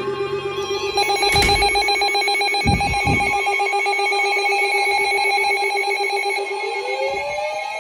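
Weather radio alert alarm sounding, signalling an incoming warning: a steady electronic tone, joined about a second in by a higher, fast-pulsing tone, which stops near the end as rising gliding tones and a new steady higher tone start.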